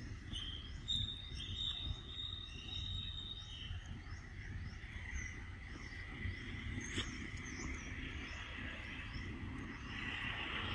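Outdoor ambience of insects droning in steady high tones, with small birds chirping repeatedly and a low rumble underneath; a single sharp click about seven seconds in.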